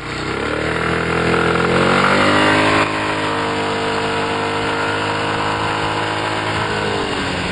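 Scooter engine pulling away, its pitch rising over the first couple of seconds, then running at a steady pitch as the scooter rides on, dipping slightly near the end, with wind and road noise throughout.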